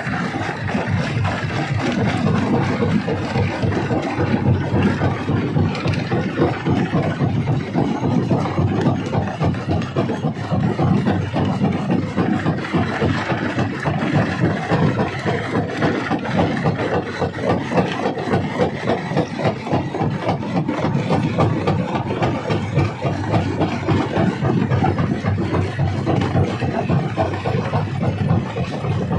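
Rock crusher running and crushing stone: a continuous dense clatter of breaking rock over the steady noise of the machine.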